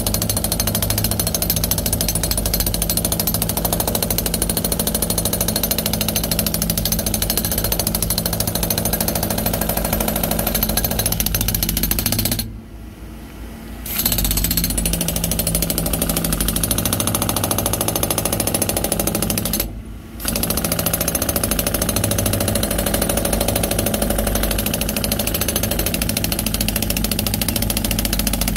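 Jackhammer chipping hardened concrete out of a concrete mixer truck's drum, a steady rapid hammering inside the steel drum. It stops for about a second and a half near the middle, and again briefly about two-thirds of the way through.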